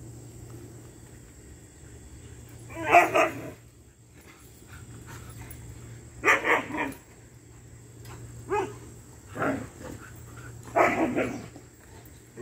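Dog barking in about five short bouts of a few quick barks each, spaced a second or more apart.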